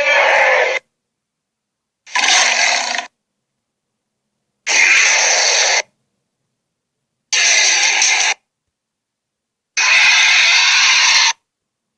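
Gorilla sound effect: a series of five short, rough, noisy roar-like calls, each about a second long and cut off abruptly, with silence between them.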